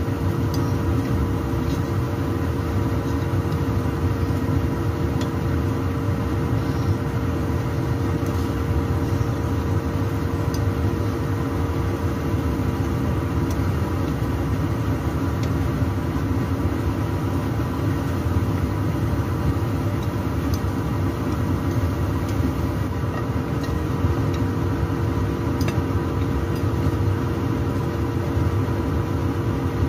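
A steady motor hum with a constant mid-pitched tone, over the sizzle of glutinous rice cake rolls frying in oil in a pan, with a few faint taps.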